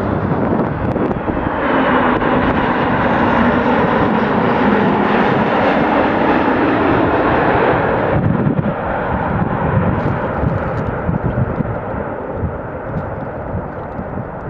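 Boeing 737 MAX airliner on final approach passing low and close, its CFM LEAP-1B turbofans loud and hissing. About eight seconds in the higher part of the sound drops away as the jet moves off, leaving a duller rumble that slowly fades.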